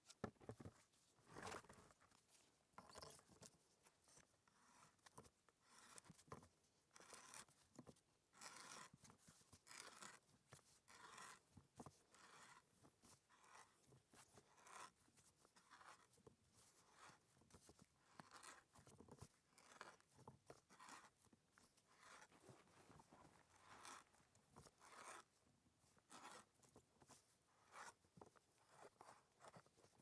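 Hand wood auger biting into a log slice: a faint run of crunching scrapes as the bit shaves out wood, in irregular strokes about one a second as the handle is turned.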